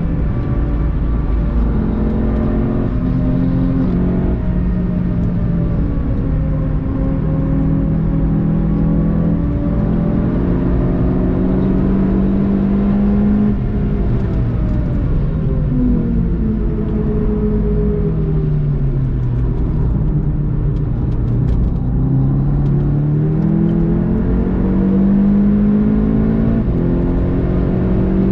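Volkswagen Golf GTI TCR's turbocharged four-cylinder engine under hard driving, heard from inside the car. Its pitch climbs under acceleration, drops as the car slows for a corner about halfway through, then climbs again.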